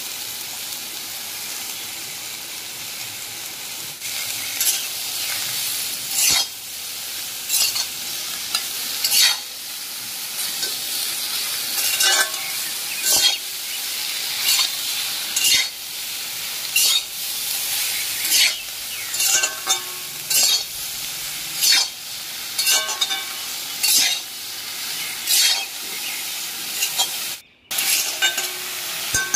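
Mixed vegetables frying in oil in a wok, sizzling steadily while a metal spatula stirs them, scraping and clinking against the pan about once every second or so. The sound drops out for a moment near the end.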